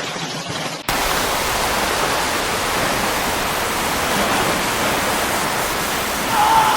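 Steady roar of a heavy storm downpour and wind, louder and fuller from about a second in. A brief wavering tone sounds near the end.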